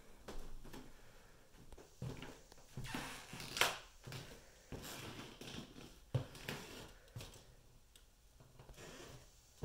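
Footsteps on a hardwood floor and handling noise from a handheld phone carried through rooms: irregular soft thuds and knocks, with a short loud swish about three and a half seconds in.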